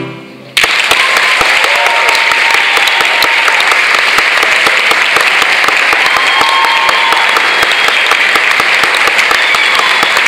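A choir's final chord dies away, and about half a second in a concert audience breaks into loud, steady applause, with a few cheers over it.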